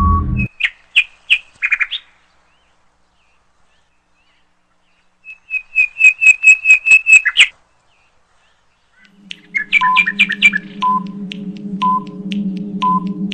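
Quiz sound effects. A steady electronic tone cuts off as the countdown timer runs out, followed by a few short high chirps. After a pause, a rapid run of about a dozen high chirps lasts two seconds. From about nine seconds in, a countdown timer beeps once a second over a steady low hum with a patter of clicks.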